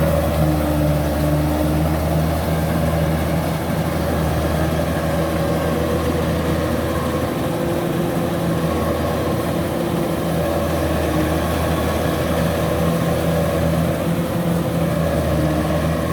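Kubota DC93 rice combine harvester's diesel engine running steadily under work, a constant low hum with machinery noise over it.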